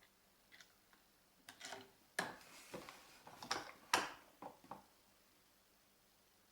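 Air rifle's action being worked: a string of light mechanical clicks and clacks, the loudest about two and four seconds in, typical of cocking the rifle and cycling the magazine to chamber a pellet.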